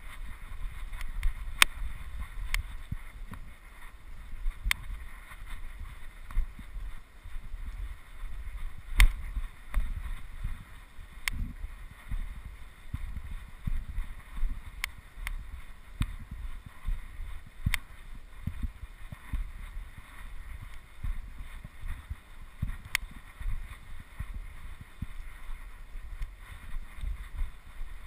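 Wind buffeting the microphone outdoors, an uneven low rumble over a steady hiss, with scattered sharp clicks at irregular intervals.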